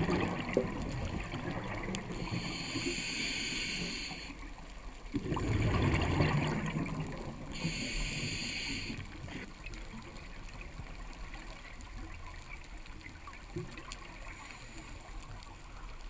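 Scuba diver breathing through a regulator underwater: a hiss on each inhale and a burst of exhaled bubbles, two full breaths in the first nine seconds, then a quieter stretch with a faint hiss near the end.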